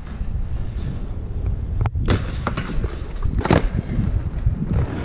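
Aggressive inline skate wheels rolling on paving with a steady low rumble, and sharp clacks of the skates striking the ground about two seconds in and again about three and a half seconds in.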